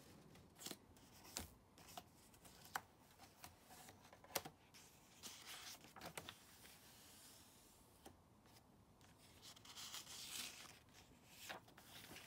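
Faint paper sounds from the pages of a hardbound sketchbook journal being turned and handled: soft rustles with a few light taps and clicks.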